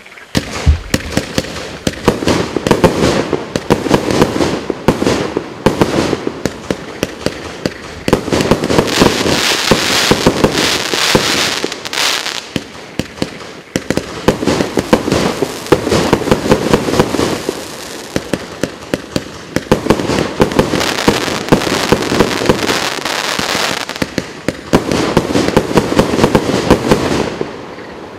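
A 120-shot, 30 mm fireworks cake firing shot after shot in fast, unbroken succession: sharp launch thumps and aerial bursts overlapping, with the loudest bangs coming in clusters every few seconds.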